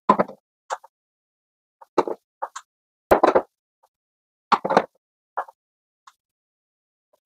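Hand screwdriver driving screws into a plastic Scanstrut cable entry gland base on a van's metal roof: a string of short, irregular scrapes and clicks with silence between them.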